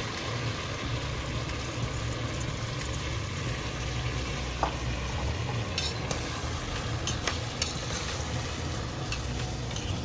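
Rice, split lentils and vegetables frying in a pot, sizzling steadily while a spatula stirs them, with a steady low hum underneath. From about halfway the spatula knocks sharply against the pot a few times.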